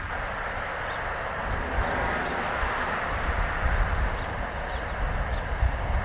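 Wind rushing and buffeting the microphone in open country, with a bird giving two high, falling whistled calls about two seconds apart.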